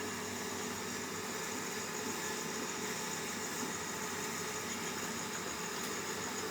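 Small electric fan and motor of a homemade egg incubator running, a steady hum with a faint hiss.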